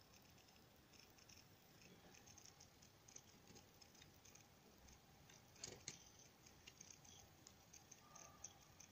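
Near silence with a faint scatter of small clicks and ticks, and two slightly louder clicks a little before six seconds in: light finger handling of an opened netbook's circuit board.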